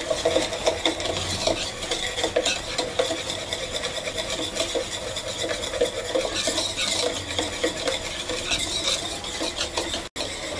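A wire balloon whisk beating egg yolks, sugar and butter in a plastic bowl: a steady, rapid clicking and scraping of the wires against the bowl and through the liquid.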